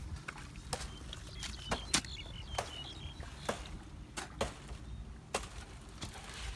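Outdoor ambience: a steady low wind rumble on the microphone, irregular sharp clicks and knocks, and a few faint bird chirps in the first half.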